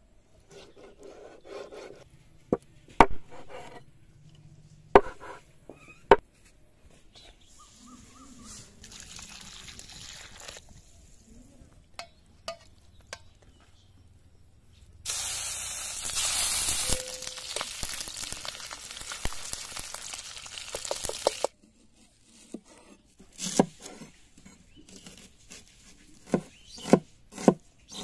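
Kitchen knife cutting raw pork belly on a wooden chopping board, with a few sharp knocks of the blade on the wood. A loud steady rushing noise runs for about six seconds midway. Then come evenly spaced knife chops on the board, about two a second, as shallots are sliced.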